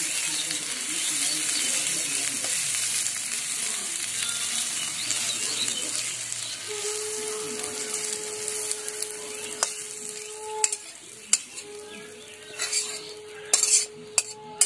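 Hot oil sizzling in a metal karai as fried taro stems are scraped out with a metal spatula, the sizzle gradually dying away. Near the end come a few sharp clinks of the spatula against the pan and plate.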